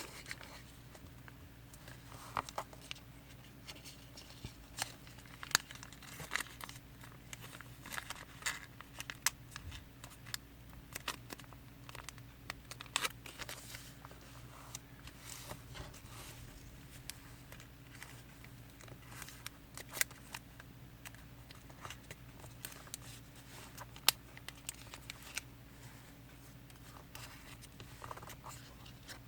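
Origami paper being folded and creased by hand: scattered crinkling, rustling and sharp little clicks of paper, over a faint steady low hum.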